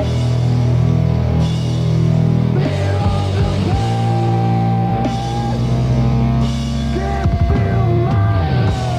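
Punk rock band recording: drum kit and guitars holding long, sustained chords, with a few bending notes near the end.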